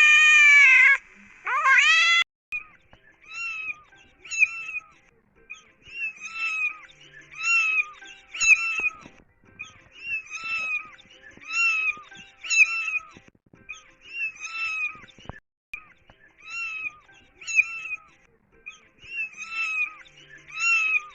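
A cat meowing: a long, loud meow that ends about a second in and a short one just after, followed by a run of short, quieter mews repeated every half second or so.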